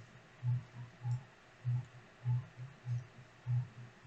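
Soft low thuds repeating at an even pace, a stronger one about every half second with weaker ones between.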